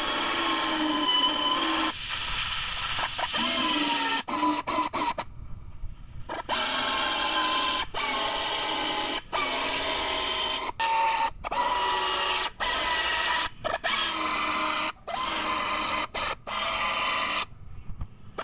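Power drill motor whining, its pitch sagging and recovering under load, stopped and restarted many times in short bursts, as when spot welds are being drilled out of a quarter panel.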